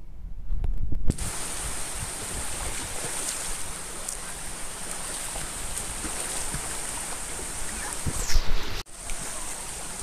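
Small waves washing up on a sandy beach, a steady hiss that swells in about a second in, with wind buffeting the microphone in low rumbles and a couple of louder gusts. The sound drops out for a moment shortly before the end.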